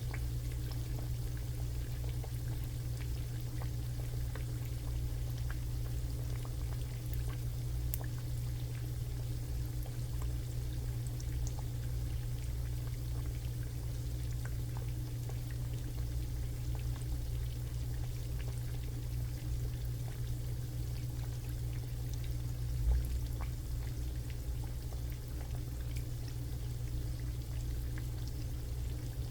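Food frying in oil, faint scattered crackles over a steady low hum, with one brief low thump about 23 seconds in.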